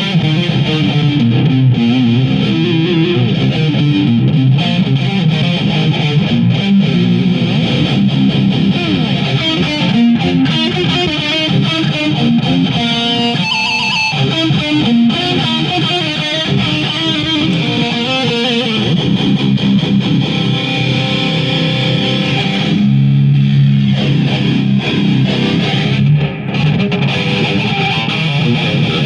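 Distorted electric guitar through a Marshall JCM 2000 amp playing heavy low riffs, with a run of higher single notes around the middle.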